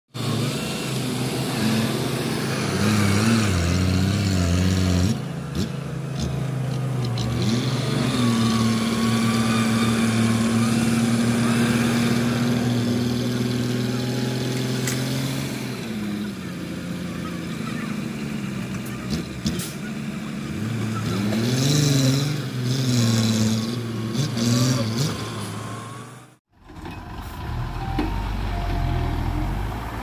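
Heavy diesel engines of dump trucks and a bulldozer at work, their pitch rising and falling as they rev, with a long steady stretch in the middle. About 26 seconds in the sound breaks off for a moment, and a lower engine sound follows.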